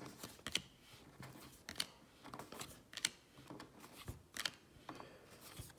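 Baseball cards being flipped through by hand: faint sliding and rustling with irregular soft clicks as each card is moved.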